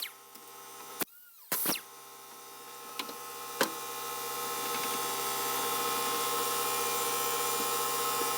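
A power tool's motor running steadily, building up over the first few seconds, with a few sharp clicks before it.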